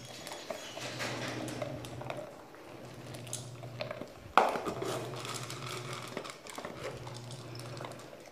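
Dog eating from a hand-held bowl: small wet licking and chewing clicks, with one sharp knock about four seconds in. A steady low hum runs underneath and breaks off every two seconds or so.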